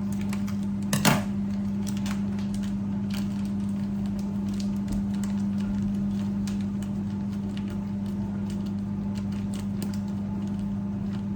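A steady low electrical hum with light clicks and taps of kitchen utensils scattered through it, and a louder clink about a second in.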